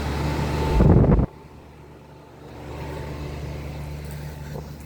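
Outdoor condenser of a 2016 Lennox Merit 3-ton central air conditioner running with a steady hum, fairly quiet. About a second in there is a brief loud rumble, after which the hum drops off abruptly and continues much more quietly.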